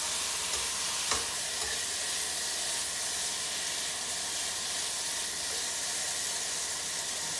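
Chicken pieces frying in a wok with a steady sizzle, stirred with metal tongs; a single sharp metal clink about a second in.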